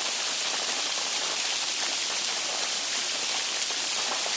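Heavy rain falling steadily: a dense, even hiss, mostly high, with the fine ticks of single drops scattered through it.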